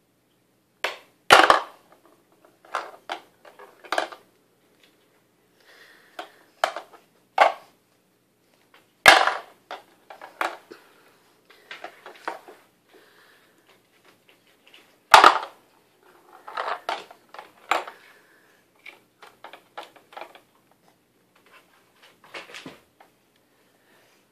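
Plastic toy hammer striking a pound-a-ball toy: irregular hard plastic knocks and clacks, with three much louder, sharper strikes spread several seconds apart and smaller clicks and rattles in between.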